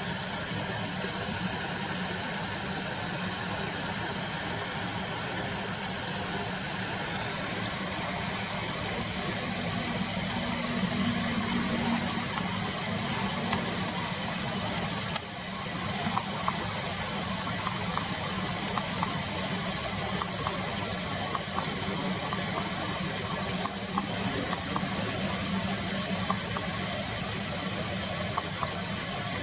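Car engine idling with a steady hum, with a few brief high-pitched chirps over it.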